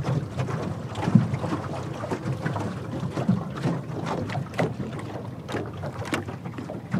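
Wind on the microphone and water lapping against a jon boat's hull, with scattered small knocks and splashes.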